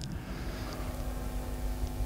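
Pause in speech: steady room tone, a low hum with faint hiss.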